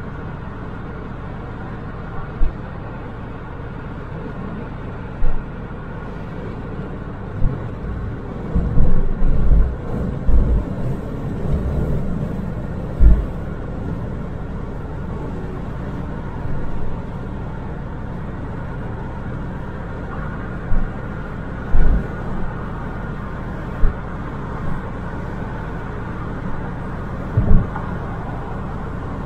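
Steady road and engine noise of a car cruising on an expressway, heard from inside the car, with short low thumps now and then, most of them close together in the first half.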